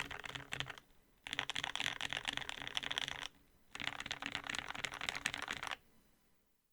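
Typing on a Tofu65 aluminum-case mechanical keyboard with lubed and filmed Gateron Black Ink linear switches on an aluminum plate and GMK keycaps. Fast keystrokes come in three runs separated by short pauses, stopping shortly before the end.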